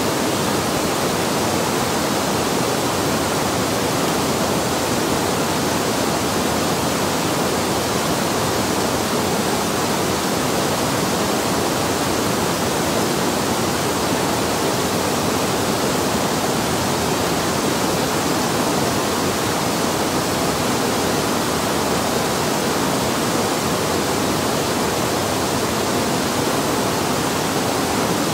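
River water pouring over a low weir: a loud, steady rush of falling water.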